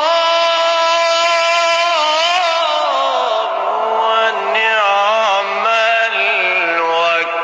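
Solo male voice singing an Egyptian ibtihal, an Islamic devotional supplication, in a high register: a long held note, then ornamented, wavering melismatic runs.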